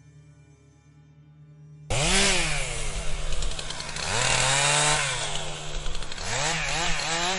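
Chainsaw engine revving, starting suddenly about two seconds in and rising and falling in pitch several times. Faint music comes before it.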